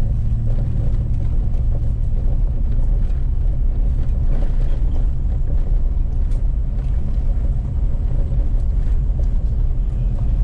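Pickup truck driving along a forest road: a steady, low rumble of engine and tyres with faint rattles.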